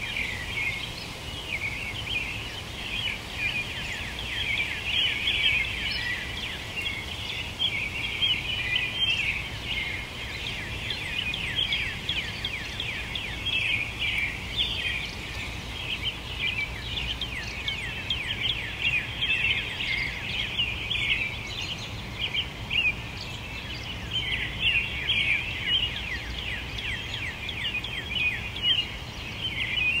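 Summer sunrise chorus of many songbirds singing and chirping at once, their high overlapping notes never pausing, with a steady low rumble underneath.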